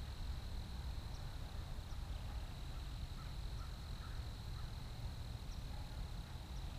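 Quiet outdoor ambience at a pond's edge: a low steady rumble on the microphone with a thin, steady high hum, and a few faint chirps about three to four and a half seconds in.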